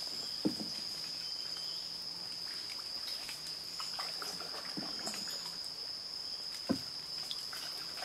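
Steady, unbroken high-pitched insect drone, with faint scattered ticks and two soft knocks, about half a second in and again near the end.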